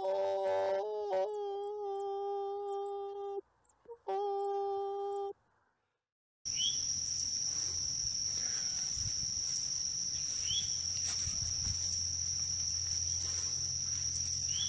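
A held, steady humming tone that breaks off briefly and resumes, then stops. After a second of silence comes a continuous high insect drone, like crickets or cicadas, with a few short chirps at intervals of several seconds.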